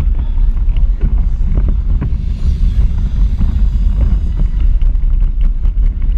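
Steady low rumble of a small electric ride-on racing car rolling over asphalt, heard from a camera mounted on the car, with wind on the microphone and scattered small knocks and rattles.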